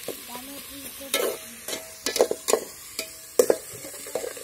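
Long steel spatula scraping and clinking against a stainless steel pot as sliced onions are stirred in hot oil, over a steady sizzle. The clinks come irregularly, about two or three a second.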